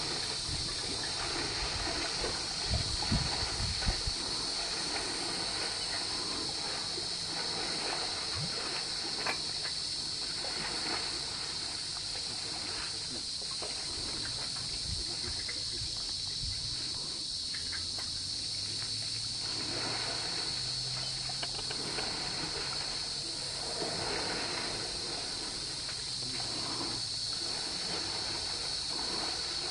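A steady, high-pitched insect drone over the sloshing and splashing of muddy water as elephants wade in a shallow water hole, with a few low thumps about three seconds in.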